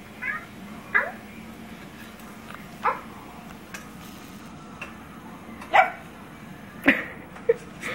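A domestic cat giving several short meows, spaced irregularly a second or more apart.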